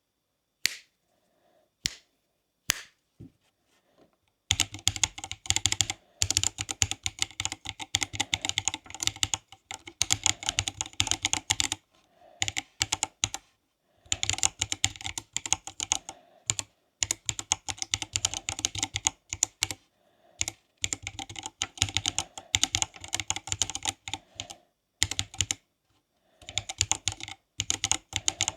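Typing on a Silakka54 split mechanical keyboard. A few single keystrokes come first, then fast runs of clicking key presses with short pauses between them.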